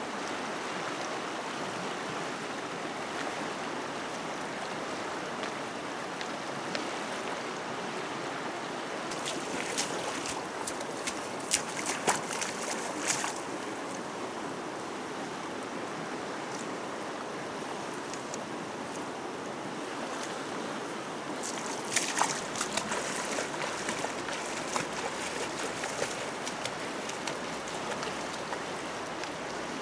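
Steady rush of a fast-flowing, flood-swollen muddy river, with two short clusters of sharp splashes and knocks, about a third of the way in and again past two-thirds, as the woven scoop net is worked in and out of the water.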